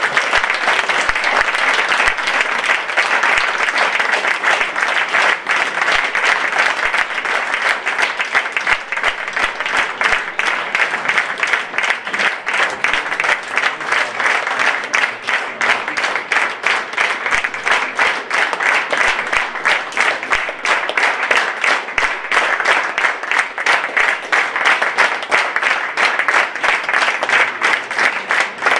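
Audience applauding, a dense, continuous clapping that holds steady throughout.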